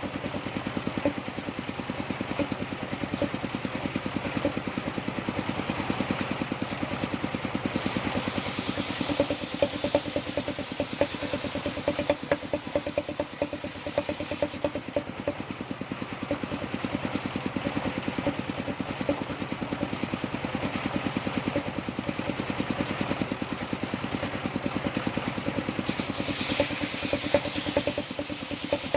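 The engine of a wood-sawing machine running steadily with a fast, even pulsing beat. A brighter hiss rises at times over it, about eight seconds in and again near the end.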